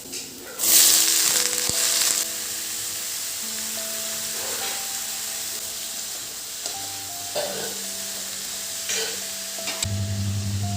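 Food sizzling in hot oil in a pan: a loud hiss breaks out about a second in as something goes into the oil, then settles to a steady sizzle, with soft background music.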